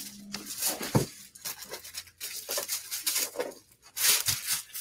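A carpet being torn and scratched: irregular ripping and scraping noises, with a knock about a second in and a louder rip near the end.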